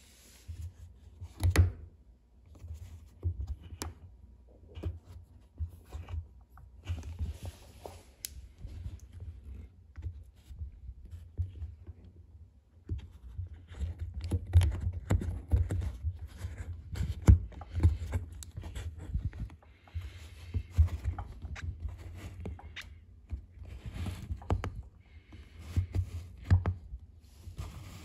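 Close handling noise of fingers rubbing, scraping and pulling at the rubber door seal of a front-loading washing machine, with irregular knocks and thumps, one sharp knock about a second and a half in.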